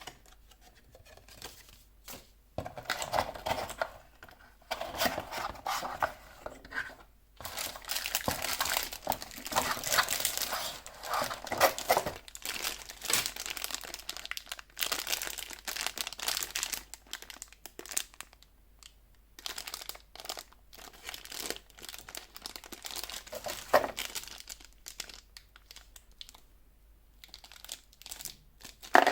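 Plastic packaging crinkling and crackling as it is handled and pulled open, in irregular stretches with short pauses and a few sharp clicks.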